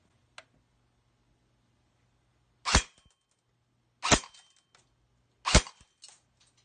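Arcturus polymer AR-15 airsoft electric gun, with its stock motor on a 7.4 V LiPo, firing three single shots about a second and a half apart.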